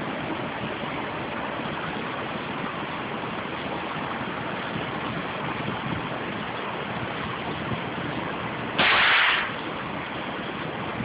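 Steady rushing noise throughout, with one loud shot from a suppressed 9mm AR-type carbine about nine seconds in, lasting about half a second.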